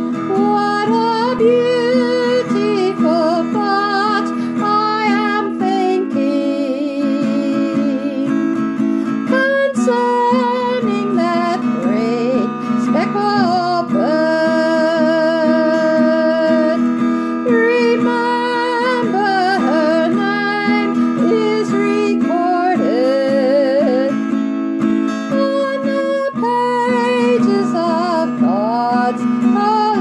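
A woman singing a slow country song while strumming an acoustic guitar. Her voice glides and bends between held notes over steady chords.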